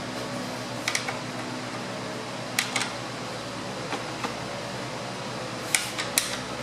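Steady fan-like hum under a handful of short, sharp metallic clicks and clinks, several in quick pairs, from hand tools and metric sockets being handled.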